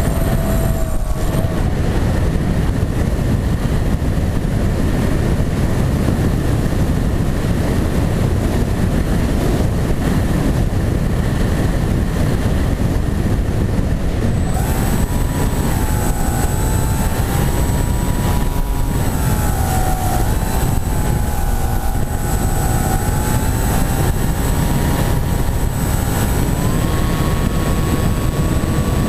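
Wind rushing over the microphone of an EPP flying-wing model airplane in flight. The motor's propeller whine is absent in the first half while the plane glides, then comes back about halfway through, its pitch wavering with the throttle and stepping higher near the end.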